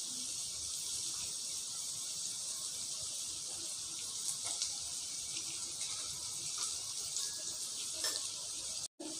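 Mushrooms and whole spices frying in hot oil in a kadai, a steady soft sizzle with a few faint pops.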